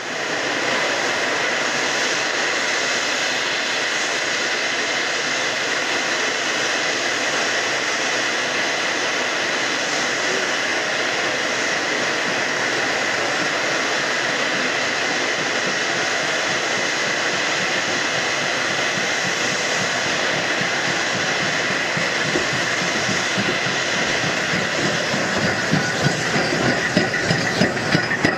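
Steam train passing close by: a loud, steady hiss, then wheels clattering over the rail joints, growing through the last several seconds.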